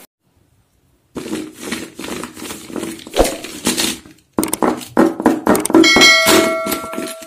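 Plastic DOMS brush pens clicking and clattering against each other as a handful is gathered and shuffled by hand, with a bell-like ding ringing out near the end.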